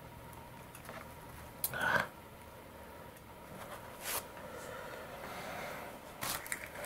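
Handling noise of a metal helping-hands arm and its alligator clip being adjusted to hold a bundle of wire ends: faint rustles with three sharper clicks about two, four and six seconds in, the first the loudest.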